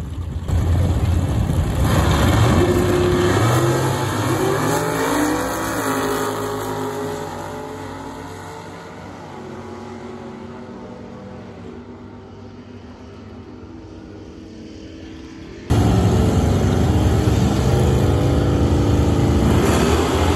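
Drag-racing car's engine accelerating hard down the strip, its pitch climbing, then fading away as the car pulls off into the distance. Near the end it cuts suddenly to another loud racing engine running at high revs.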